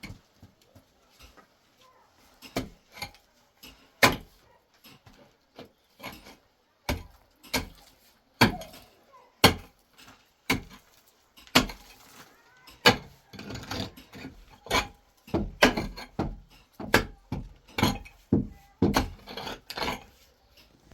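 A long run of irregular sharp knocks and clatters of hard objects being handled or struck, a few every second, coming closer together in the second half.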